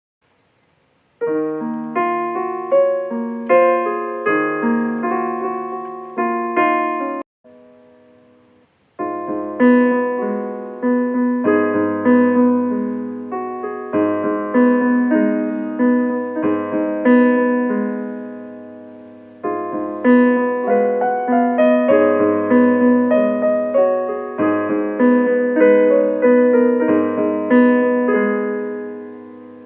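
Piano playing chords under a melody, each note struck and then fading. It starts about a second in and drops away briefly a quarter of the way through before carrying on.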